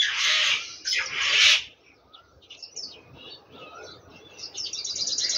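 Two hissy scraping bursts in the first second and a half as a spoon stirs meat-and-taro curry in the pot. Small birds chirp throughout, with a quick run of repeated high chirps near the end.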